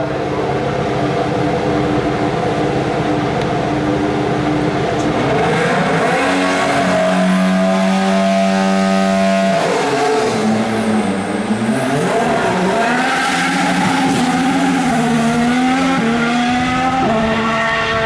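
Formula One car engine running on track at high revs. Its note holds steady, climbs around five seconds in and drops sharply about ten seconds in, then rises and falls unevenly with another step near the end.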